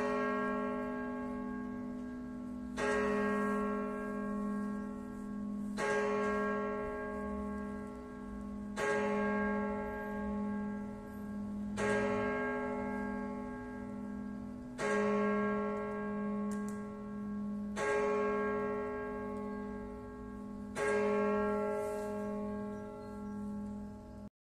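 Church tower clock bell striking the hour: single strokes about every three seconds, eight in this stretch, each ringing on and fading over the bell's steady low hum. The ringing is cut off suddenly near the end.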